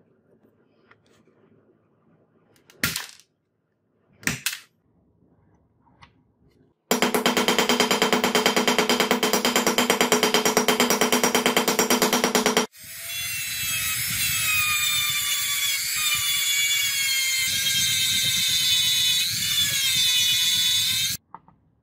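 A few light knocks, then a fast, even run of hammer taps on the metal held in a vise for about six seconds. Then a handheld rotary tool with a sanding drum runs on the brass handle, its whine shifting in pitch as it is pressed on, and stops just before the end.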